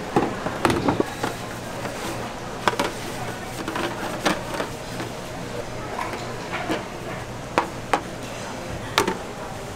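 Clicks, taps and light knocks of a large square metal tin of soybean cooking oil being opened by hand, its plastic cap and pour spout worked loose and pulled up, with a steady low hum underneath.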